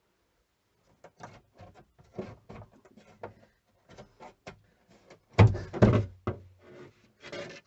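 Tongue-and-groove pine wall panelling being pried off with needle-nose pliers: a run of small wooden clicks and knocks, then a louder cluster of thumps about five and a half seconds in as a board comes loose.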